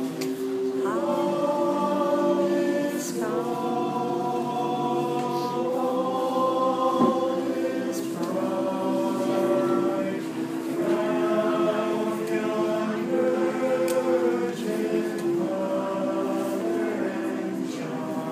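Men's barbershop chorus singing a cappella in close harmony, holding chords that change every second or two.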